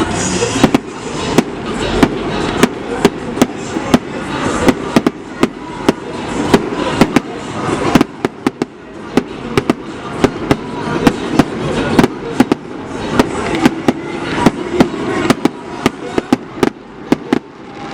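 Fireworks display: a rapid string of loud bangs from aerial shells bursting, often several a second, over a continuous noisy wash between the reports.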